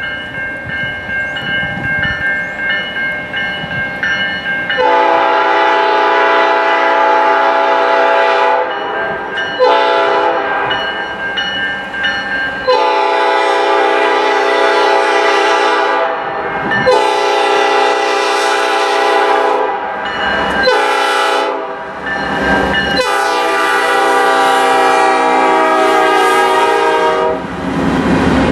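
Multi-chime air horn of a GE Dash 9-44CW freight locomotive sounding a series of long blasts. The horn comes in loud about five seconds in, with brief gaps and one short blast partway through, over the low rumble of the approaching train. Near the end the horn stops as the train passes close, with its cars rolling by.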